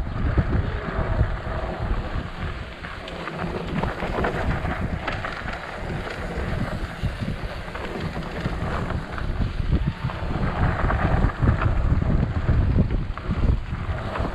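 Wind buffeting the microphone of a camera riding along on a mountain bike descent, a loud rough rush that swells and dips, with frequent small knocks and rattles from the bike on the dirt trail.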